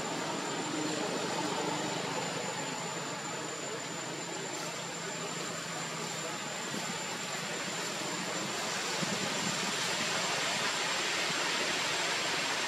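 Steady background hiss with a thin, faint high whine.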